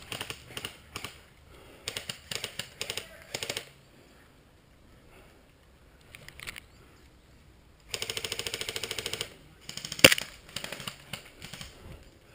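Airsoft guns firing: scattered single shots and short strings of clicks, then a steady full-auto burst of about a second and a half, followed by one much louder sharp crack and more scattered shots.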